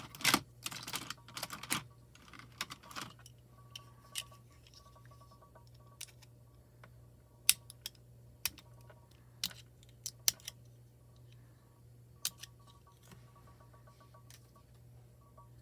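Small sharp clicks and taps with light paper rustling: a pokey tool popping the small centre pieces out of a die-cut toner sheet. A quick cluster of clicks comes in the first three seconds, then single ticks about once a second a few times.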